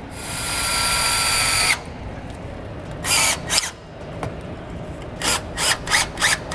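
Milwaukee M18 cordless drill driving self-tapping screws into steel: a steady motor whine for nearly two seconds that stops abruptly, then several short bursts of the drill.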